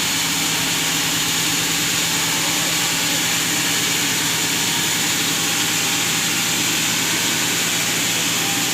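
Sawmill machinery running steadily: a constant engine-like hum under a loud high hiss, with no breaks or impacts.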